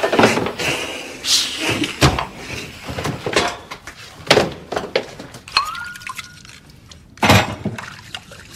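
Dishes and other objects being knocked about: a string of irregular crashes and clatters with clinking, the loudest crash near the end, and a short ringing tone a little past the middle.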